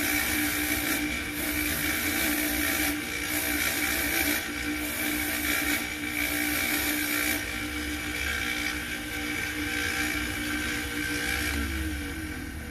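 Bench polishing motor running with a steady hum and whine while a coin is held to its spinning polishing wheel, a rasping hiss rising each time the coin is pressed against the wheel, several times in the first seven seconds. Near the end the hum drops in pitch and fades.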